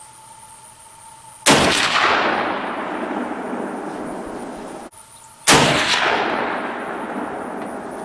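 Two gunshots, most likely rifle shots, about four seconds apart. Each is a sudden loud crack followed by a long echo that rolls away over several seconds; the first echo stops abruptly.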